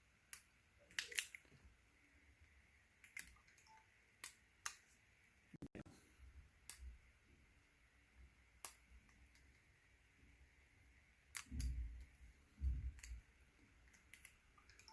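Scattered light clicks and taps of small tools and plastic parts being handled on an opened smartphone, with a couple of dull knocks near the end.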